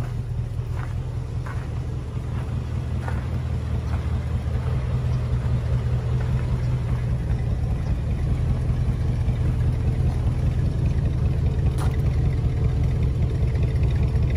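A vehicle engine idling steadily with a low rumble, growing a little louder after a few seconds.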